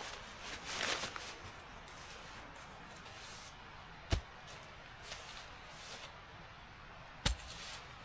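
Rustling of camping gear being handled over dry leaf litter, with two sharp clicks, one a little past halfway and one near the end.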